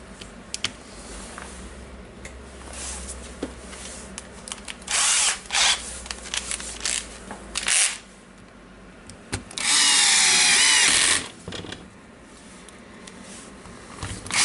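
A cordless drill-driver with a screwdriver bit runs in a few short bursts, then once for about a second and a half near the middle, as it drives screws into a plastic drill housing. Light clicks and rattles of handling come between the bursts.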